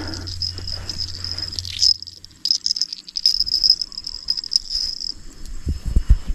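An insect trilling in a high, pulsing buzz. It breaks off briefly about two seconds in and stops about five seconds in. A few low thumps come near the end.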